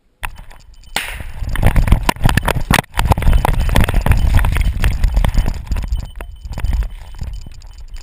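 Dog running flat out through snow with a GoPro strapped to its back: wind rumble on the microphone under a rapid, jumbled run of knocks and clinks as the camera and harness jolt with each stride.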